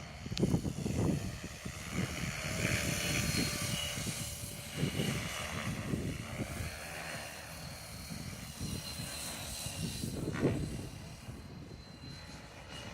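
Align T-Rex 550X electric RC helicopter flying, its rotor blades and 6S-powered motor whining and swelling as it manoeuvres. Gusts of wind buffet the microphone.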